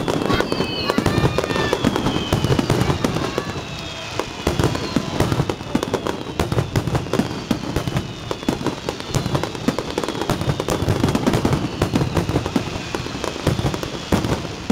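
Aerial fireworks bursting in a dense barrage of bangs and crackles, with high whistling tones gliding down in pitch over the first half.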